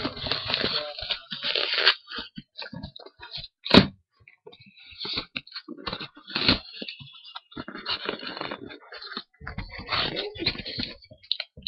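A mailed package being torn and pried open by hand: irregular ripping, crunching and scraping of the packaging, with a sharp crack just under four seconds in.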